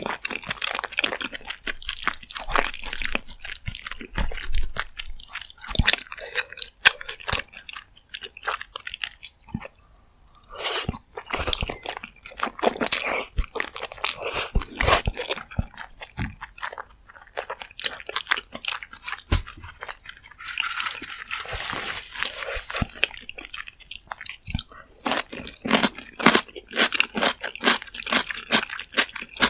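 Close-miked chewing and biting of spicy rose jjimdak, a dense run of short sharp wet mouth clicks with brief pauses between mouthfuls.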